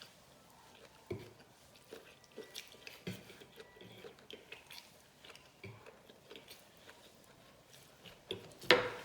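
Close-up chewing of seafood and rice, with irregular wet mouth clicks and smacks. A single louder, sharper sound comes near the end.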